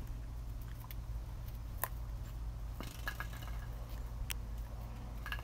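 Six-week-old German Shepherd puppies scuffling and tugging at a plush toy on concrete, with a few faint scattered clicks, over a steady low rumble.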